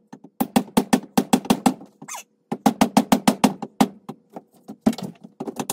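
Rapid light hammer taps driving a wedge into the top of an axe handle seated in the axe head's eye, about six strikes a second, each with a short ring. They come in three quick runs with short pauses between.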